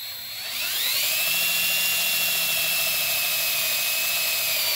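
Cordless drill spinning up to a steady whine as it bores a 3/16-inch hole through a metal mounting plate and door frame. The pitch rises over the first second, then holds.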